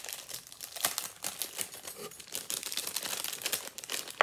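Packaging crinkling and crackling as it is pulled open by hand, a dense run of irregular crackles.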